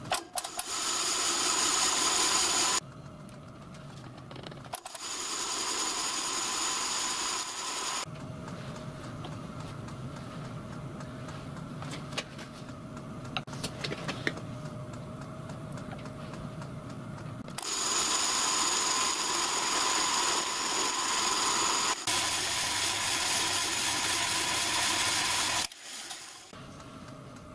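Vertical milling machine running with a single-point fly cutter taking a light scratch pass on a gear blank for single-point gear cutting. Three louder spells of high-pitched cutting noise, the longest near the end, with the machine running quieter between them and a few light clicks as the dividing head is indexed.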